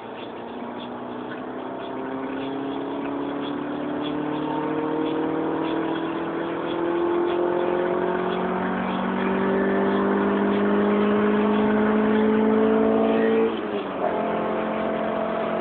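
Honda CRX ED9's four-cylinder engine heard from inside the cabin, pulling hard in one gear with its note climbing steadily and growing louder. Near the end the revs drop sharply at an upshift, and the engine carries on at a steady lower pitch.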